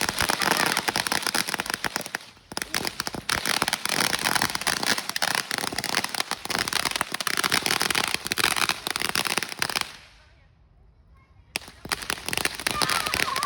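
Consumer firework going off with dense, rapid crackling. It runs in one long spell with a short break a little over two seconds in, stops about ten seconds in, and then a last burst of crackling starts about a second and a half later.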